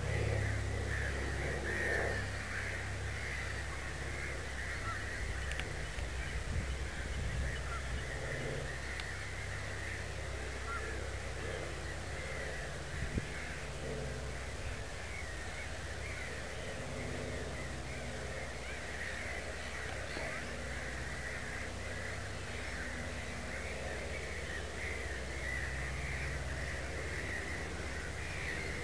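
A steady background of many small overlapping bird calls, with a steady low rumble beneath and a single brief click near the middle.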